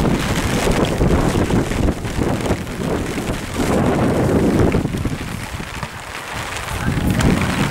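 Wind buffeting the camera microphone: an uneven low rumble that swells and dips, with a faint hiss above it.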